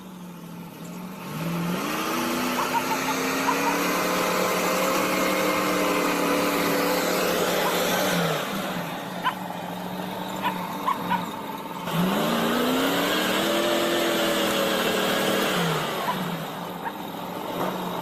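A Soviet ZIL truck's engine revving hard twice under load as it pushes through deep snow. Each time it climbs in pitch, holds for several seconds, then drops back to a steady idle, with a few small clicks in the pause between.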